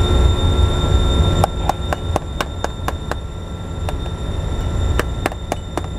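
Heavy compressor machinery running with a deep rumble and a steady high whine. The whine cuts off about a second and a half in, and sharp metallic clicks then come about four a second, with a pause midway.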